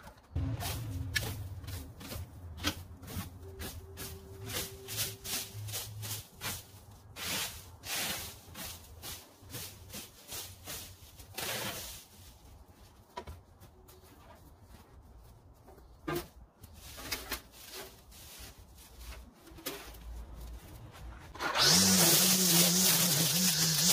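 A leaf rake scratching and dragging through dry cut grass and gravelly dirt in quick, repeated strokes. Near the end a string trimmer starts up and runs with a steady hum.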